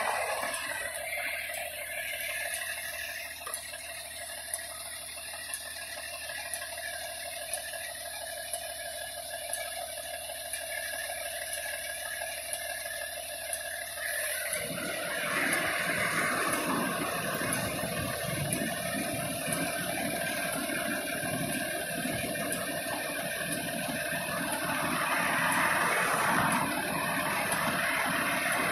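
Fire engine running at its pump panel: a steady mechanical hum with a hiss over it. About halfway through, a louder rushing noise sets in and carries on.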